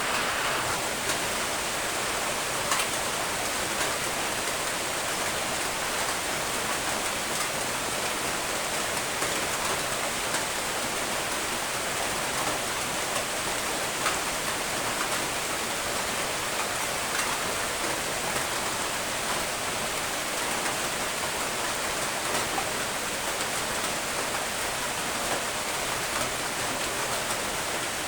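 Steady rain falling, an even hiss with occasional individual drop ticks.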